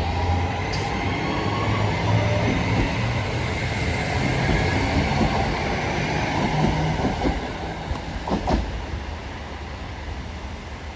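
Class 323 electric multiple unit on the move: a steady rumble of wheels on rail with a faint whine from its traction equipment. There is a short cluster of knocks about eight and a half seconds in, after which the noise eases off.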